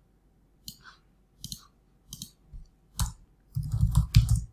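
Computer mouse and keyboard clicks: a few separate clicks, then a quick run of typing in the last second.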